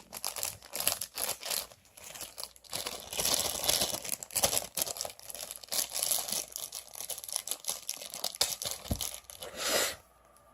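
Packaging being torn open and crinkled by hand, in irregular rustling and crackling bursts that stop shortly before the end.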